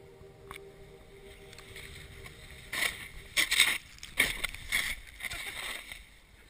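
Snowboard riding through deep powder: a run of loud swishing rushes of snow spray, beginning about three seconds in and dying down near the end.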